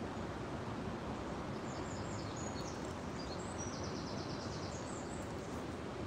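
River water flowing steadily. A small songbird sings high chirps and a fast trill from about a second and a half in until near the end.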